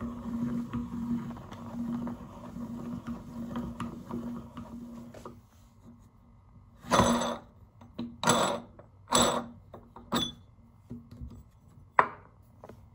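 Hand-cranked metal meat grinder working soft choco pie through its plate, with a steady hum and faint clicks for about five seconds. Then, about seven seconds in, come four short rustling scrapes as hands pull the sticky extruded strands off the grinder plate, and a single sharp tap near the end.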